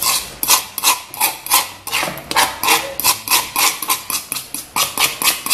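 Quick repeated scraping strokes across a plastic cutting board, about four or five a second, as chopped tomato, mortadella and herbs are swept off it into a bowl.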